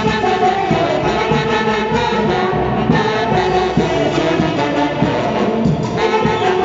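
Band music from a Mantaro-valley orquesta: wind instruments play a melody over a steady beat.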